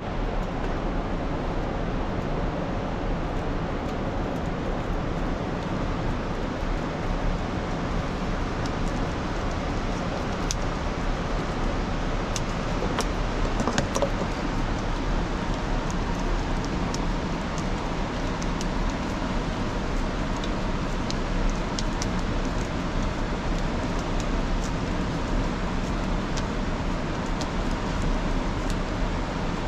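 A steady rushing noise, even and unbroken, with a few faint scattered clicks on top.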